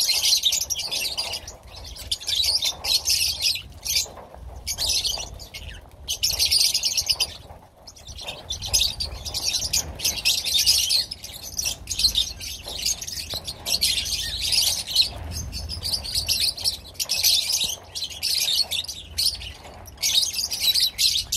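A flock of lovebirds chattering: many shrill chirps at once, coming in bursts of a second or two with short breaks between.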